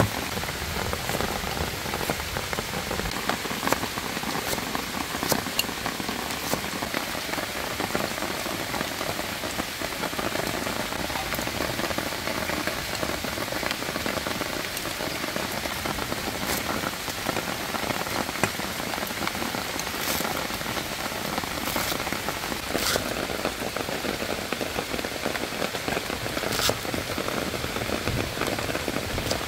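Steady rain falling, with now and then a sharp tick standing out from the even patter.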